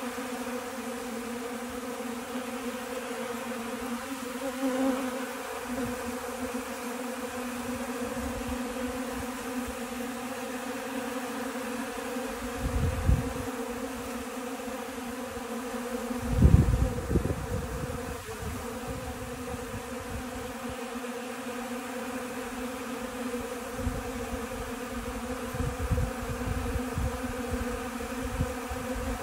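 Many honey bees buzzing in a steady hum as they feed on protein powder. A few low thumps sound over the hum, the loudest about halfway through.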